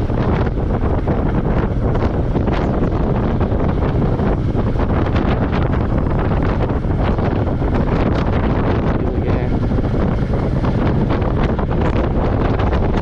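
Wind rushing steadily over the microphone of a moving motorcycle, with the low, steady running of a Royal Enfield Meteor 350's single-cylinder engine underneath.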